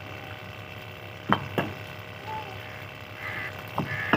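Fired clay bricks knocking against each other as they are picked up and set down: four sharp clacks, in two pairs a few tenths of a second apart, the second pair near the end.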